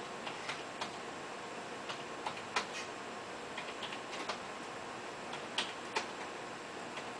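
Computer keyboard keys clicking irregularly in small clusters as numbers are typed into a spreadsheet, over a steady faint hiss.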